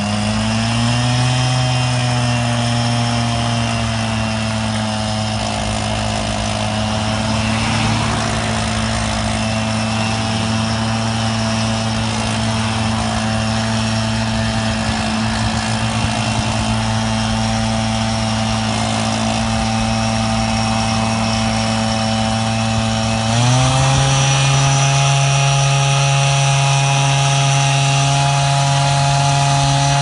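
Small petrol engine of a trike-mounted street litter vacuum running at high speed while the hose sucks up kerbside debris. About three-quarters of the way through, its pitch steps up suddenly as it revs higher.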